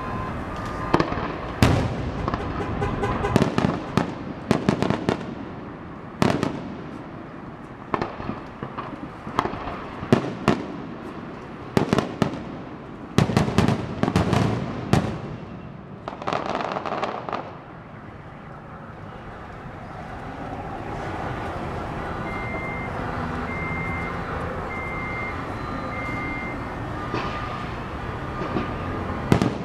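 Aerial firework shells bursting in a rapid series of sharp bangs. The bangs stop a little past halfway, leaving steady background noise with a short high beep repeating a few times.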